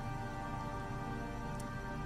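Background music with steady sustained tones.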